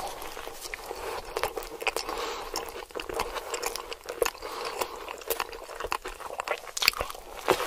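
Close-up eating sounds of a steak-and-cheese sandwich on a bread roll being bitten and chewed: wet mouth sounds with frequent crisp clicks and crunches.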